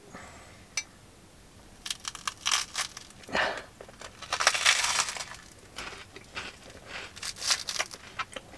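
Crunching as a crisp, crunchy Yorkshire pudding is bitten and chewed, in crackly bursts that start about two seconds in and are loudest around the middle.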